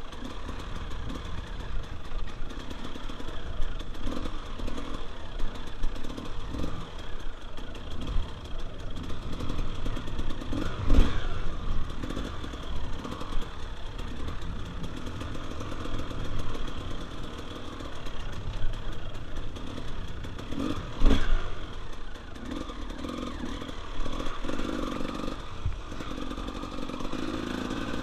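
Dirt bike engine running at low revs, rising and falling unevenly, with frequent clatter and knocks. Two loud knocks stand out, about a third of the way through and again about three quarters of the way through.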